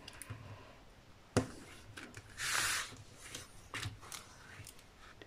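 A hand handling a flexible tape measure on a diamond painting canvas: a sharp tap about a second and a half in, a rustling swish of the hand sliding over the canvas a little later, then a few light taps.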